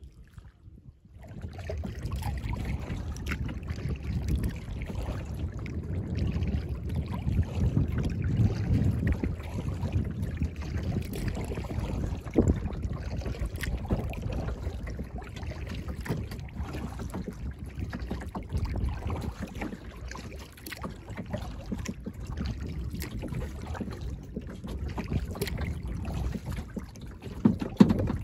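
A kayak being paddled across a lake: irregular paddle splashes and water noise against the hull, with a low wind rumble on the microphone. It starts about a second in.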